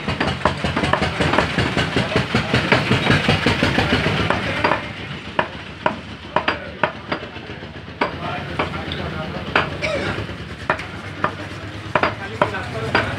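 A butcher's blade chopping beef on a wooden tree-stump block: a quick run of sharp knocks, then single chops spaced about a second apart.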